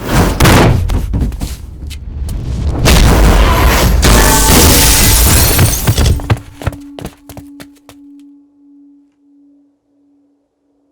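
Cinematic explosion sound effect: a few heavy hits, then a long loud blast with deep rumble lasting about three seconds, followed by scattered crackles as it dies away. A steady low tone carries on under the tail and fades out.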